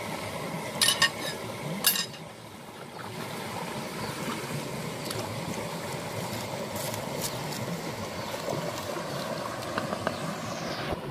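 Steady rush of a shallow, rocky river flowing. Three sharp knocks cut through it about a second in and again just before two seconds.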